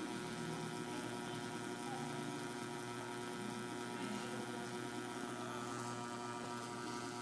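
Steady electrical hum, several constant tones over a faint hiss.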